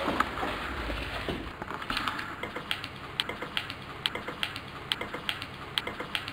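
A run of light, sharp clicks, about three a second and slightly uneven, starting about a second and a half in, with no music.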